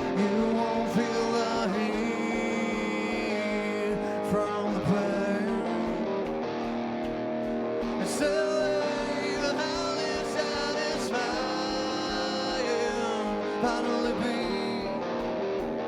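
Live rock band playing: guitars and drums, with a singing voice over them.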